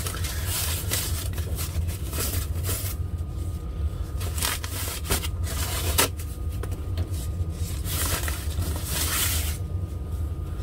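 Thin plastic wrapping crinkling and rustling as it is handled and pulled off a kit guitar's neck. It is loudest in the first few seconds and again near the end.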